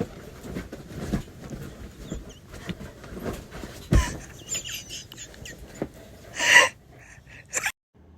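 A dog making short high-pitched whining calls among scuffling noises, with one louder call about six and a half seconds in; the sound cuts out near the end and a low steady hum follows.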